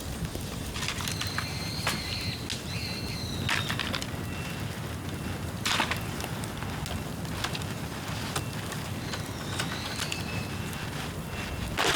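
Bamboo bonfire burning, wet bamboo crackling steadily over a low rumble of the flames, with two sharp pops about halfway through and near the end. A faint high whistle comes and goes.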